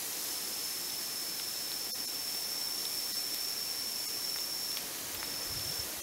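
Steady background hiss with a thin, high-pitched whine held for about four and a half seconds, which stops briefly and returns for about half a second near the end.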